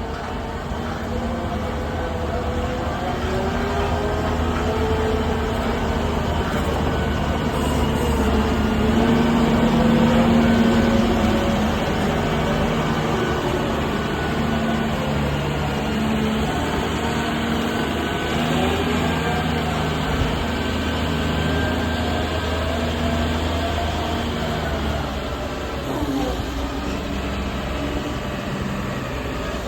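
Diesel engine of a Doosan DX210WA wheeled excavator running, its pitch rising and falling as it is worked, loudest about ten seconds in.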